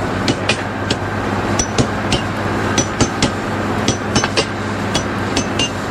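Irregular sharp metallic knocks and clinks, each with a short bright ring, over the steady hum of a running engine.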